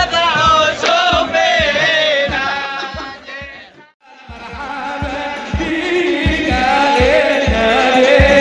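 Group singing of a devotional chant over steady drum beats. It fades out to near silence about halfway through, then fades back in.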